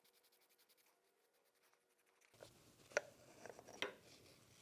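Near silence for about two seconds. Then faint rubbing and a few light clicks, the loudest about three seconds in, as a greasy metal spindle end cap is turned off by hand with a paper towel.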